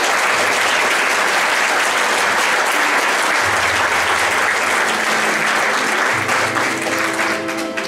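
Theatre audience applauding, thinning out near the end as soft instrumental music comes in.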